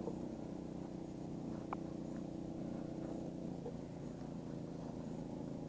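An engine running steadily at idle, a low even hum, with a faint click about a second and a half in.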